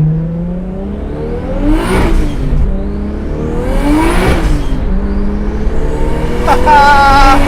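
A single-turbo RB26 straight-six, built to 500 hp, pulls hard under full throttle, its pitch climbing through the revs. There are two upshifts, about two and four seconds in, and the revs climb again after each.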